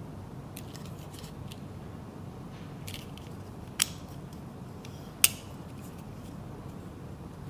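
A folding knife being handled: a few light ticks, then two sharp clicks about a second and a half apart, over a low steady hum.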